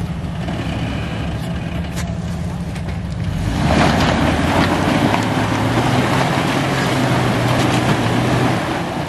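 Jeep Wrangler engine running at a low steady speed, then revved hard about three and a half seconds in and held on the throttle for about five seconds as the mud-caked Jeep climbs the muddy bank, before easing off near the end.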